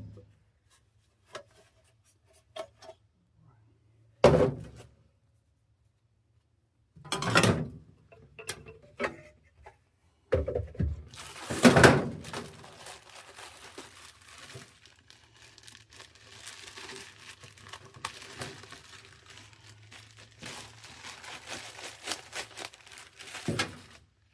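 Handling noise from work on a furnace inducer motor: several separate knocks and thunks of parts and tools, then a long stretch of rustling and crinkling.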